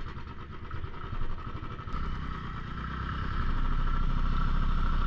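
Motorcycle engine running over a rough off-road track, getting louder about two seconds in and again a second or so later.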